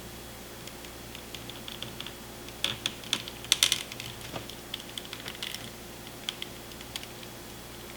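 Irregular small plastic clicks and taps as an action figure's foot joint is handled and worked, with a brief flurry of quick clicks a few seconds in.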